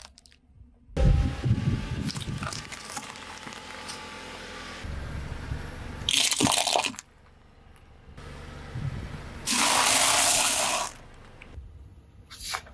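A car tyre rolling slowly over objects on pavement and crushing them, in several separate bursts: a rumble with crackling as things break under the tread, a short sharp crunch as a pile of seashells is crushed, and later a steady rushing noise lasting over a second.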